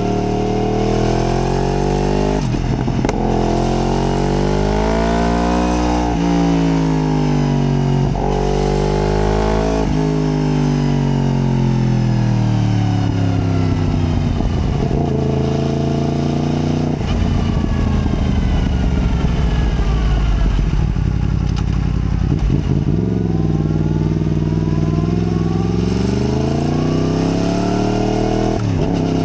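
Yamaha MT-10's crossplane inline-four engine under way, its revs rising and falling again and again as it accelerates and slows through the bends. It has a few short breaks in the note between pulls.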